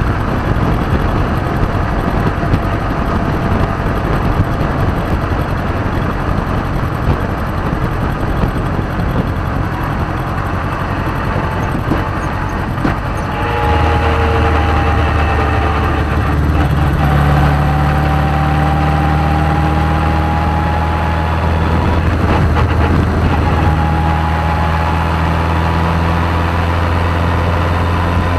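Radical SR3 race car's engine running, heard from the open cockpit along with wind noise. About halfway through the sound settles into a steadier, deeper drone whose pitch wavers slowly.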